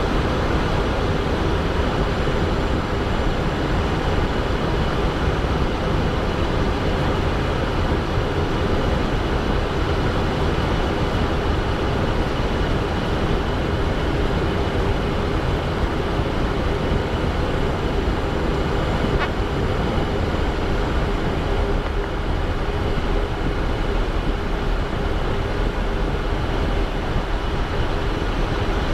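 Steady cockpit noise of a Cessna Citation Bravo jet in flight: rushing airflow and the hum of its twin turbofan engines, with a faint steady whine, unchanging throughout.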